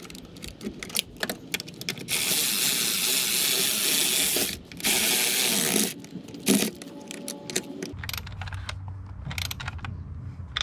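Cordless electric ratchet running down the brake master cylinder's mounting nuts in two runs, one of about two and a half seconds and a shorter one a moment later, with clicks of the ratchet and socket between.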